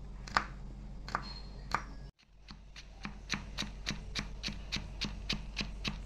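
Chef's knife chopping garlic on a wooden board, knocking against the wood with each stroke: three slow, spaced chops, then after a brief drop-out about two seconds in, fast even mincing at about four strokes a second to chop the garlic fine.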